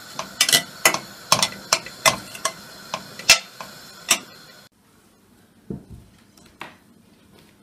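A metal spoon stirring chopped onion and butter frying in a stainless steel pot, with sharp clinks against the pot every third to half second over a steady sizzle. The stirring stops about four and a half seconds in, leaving only a few soft sounds.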